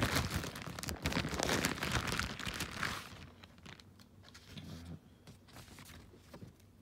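A mailing package being torn open and crinkled by hand, a dense crackling rustle for about three seconds, then fainter handling rustles.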